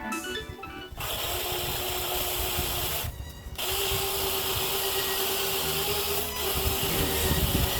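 Craftsman chainsaw running at a steady pitch. It cuts out briefly about three seconds in, then runs again.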